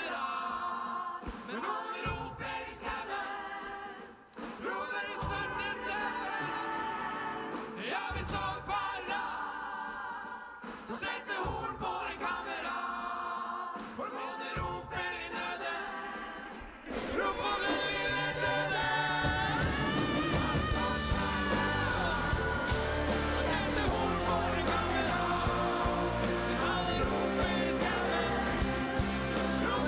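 Live music: a choir singing with a rock band and symphony orchestra. About seventeen seconds in the full ensemble comes in, louder and with heavy bass.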